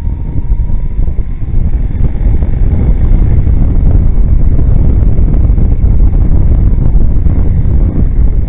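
Wind buffeting the microphone of a camera on a moving motorcycle, mixed with the rush of the ride, getting louder over the first couple of seconds as the bike picks up speed and then holding steady.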